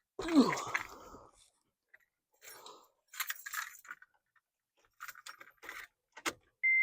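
Clicks and plastic rattles of the new blower motor and its wiring connector being handled and plugged in, loudest just after the start. Near the end a steady high electronic beep begins.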